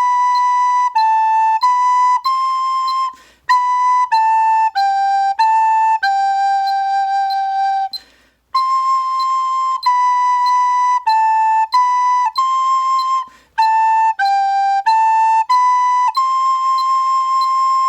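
Soprano recorder playing a slow, simple melody on the notes high C, B, A and G, one clear note at a time. It comes in four phrases, with a short pause for breath after each, about three, eight and thirteen seconds in.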